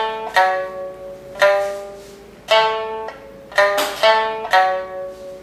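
Okinawan sanshin (three-stringed snakeskin lute) playing a slow run of single plucked notes, each ringing and fading, in an instrumental passage of an Okinawan classical folk song.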